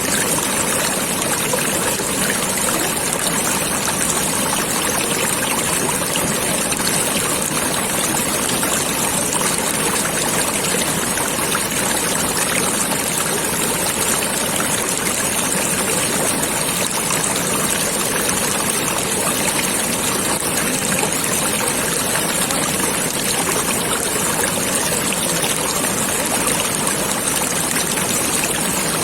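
Flowing stream water running in a steady, unbroken rush.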